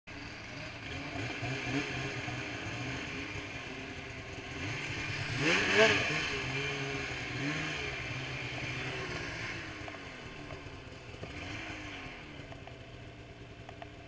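Polaris Switchback Assault 144 snowmobile's two-stroke engine with a Bikeman Velocity Trail Can exhaust, running under throttle. The revs climb sharply to the loudest point about six seconds in, then ease off, and the engine fades toward the end.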